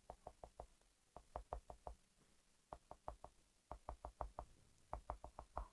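Faint quick taps of a stylus on a drawing tablet as short dashes are drawn one by one, in runs of about five taps with short pauses between.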